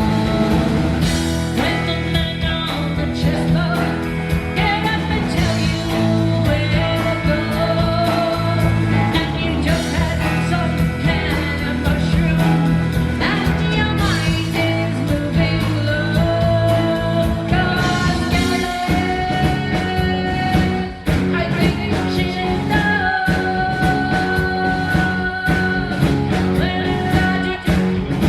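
Live rock band with a singer performing a psychedelic rock song, drums, guitar and bass under the vocal. The singer holds long high notes in the second half.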